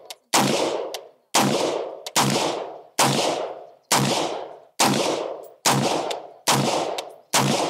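AR-15 pistol with a 7.5-inch barrel firing 5.56 ammunition in steady semi-automatic fire: nine shots, a little under one a second, each trailing off in a short echo.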